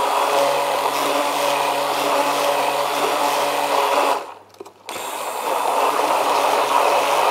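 Hand-held immersion blender running in a plastic jug, puréeing mango with sugar into a thick purée: a steady motor whine. It stops for under a second a little after four seconds in, then starts again and runs on.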